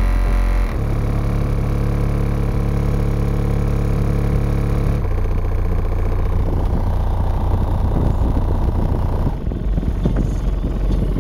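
Loud, deep bass music from RE Audio SX 15-inch subwoofers in a Honda Civic, heard from outside the car and played hard enough to flex its windows. Long held bass notes change about a second in, at about five seconds and again near nine seconds.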